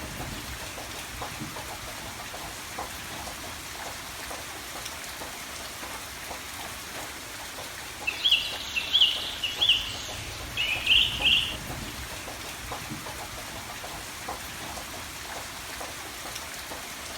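Steady rain falling, with a bird breaking in about halfway through with a short run of loud, quick chirps, two groups over about three seconds.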